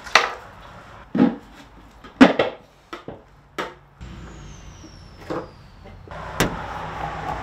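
Scattered sharp knocks and taps of parts being handled on a plywood board, as a clear plastic camera dome is set in place over its mount and wiped down. About four seconds in, a steady background hiss comes in and grows louder after six seconds.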